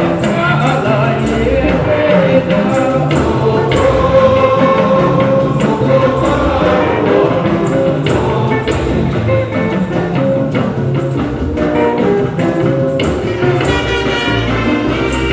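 Church choir singing with instruments and a steady percussion beat; the music starts abruptly.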